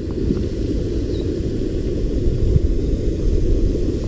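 A small boat's engine running steadily, a low rumble with no changes in pace.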